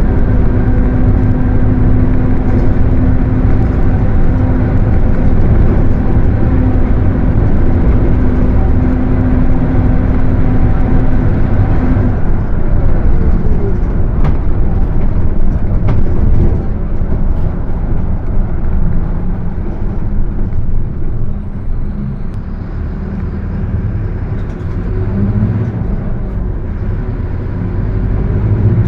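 A Mercedes-Benz OF 1721 diesel bus driving, its driveline giving a steady droning whine over the engine, the 'differential roncando' (droning differential) the title names. The whine cuts off about twelve seconds in. The engine then eases off for a while and builds again near the end.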